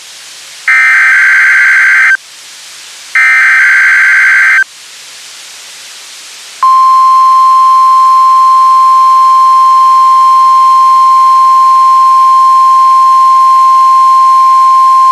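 NOAA Weather Radio SAME alert header: two of its three identical digital data bursts, each about a second and a half long with a short gap between. After a pause, the steady 1050 Hz warning alarm tone starts about six and a half seconds in, sounding for a Required Weekly Test.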